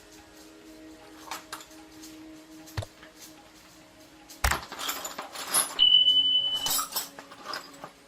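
Metal hand tools clinking and being handled, with a sharp knock about four and a half seconds in, then a couple of seconds of scraping and clattering and a short high-pitched squeak.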